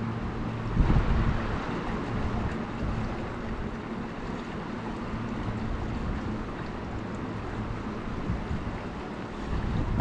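Steady rushing of the Wenatchee River mixed with wind buffeting the microphone, with one brief knock about a second in.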